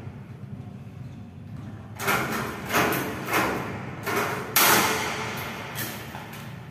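About five sharp knocks on the tubular metal partition frame as it is worked at its base with a hand tool, coming in quick succession, each dying away briefly; the last is the loudest.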